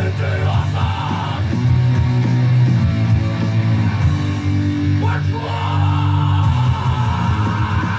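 Rock music with loud guitars and bass playing steadily.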